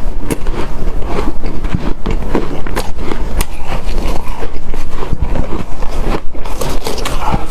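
Close-miked biting and chewing of hard, snow-like powdered ice: a dense, continuous run of crisp crunches and crackles.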